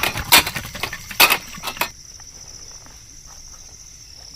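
About four sharp knocks or clinks in the first two seconds, then a faint steady high-pitched hiss.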